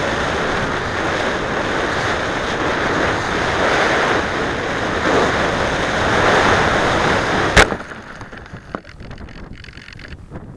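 Airflow rushing over the onboard camera's microphone as a Mijet slope-soaring glider flies. About three-quarters of the way through, a sharp knock marks the glider touching down in the grass, with a lighter knock a second later as it settles. After that there is only faint wind on the microphone.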